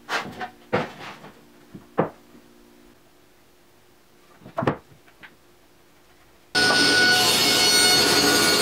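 Plywood blocks knocked and set down on a plywood workbench: several sharp wooden knocks in the first two seconds and two more about halfway through. About two-thirds of the way in, a table saw is suddenly heard running at speed, a loud steady noise with a few fixed tones in it.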